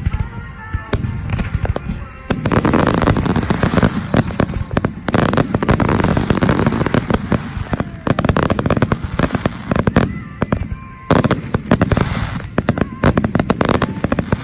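Fireworks display: shells bursting and crackling in rapid succession. The barrage thickens about two seconds in and eases briefly near the eleven-second mark before picking up again.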